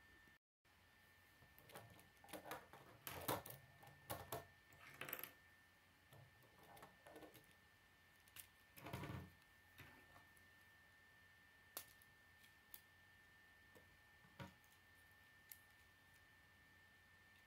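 K'nex plastic rods and connectors clicking and rattling as they are handled and snapped together, in scattered clusters, followed later by a few single sharp clicks. A faint steady high whine runs underneath.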